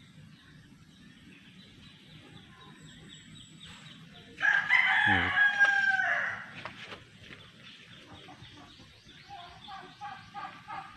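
A rooster crowing once, about four seconds in, one loud call of about two seconds. Near the end, softer repeated chicken clucking.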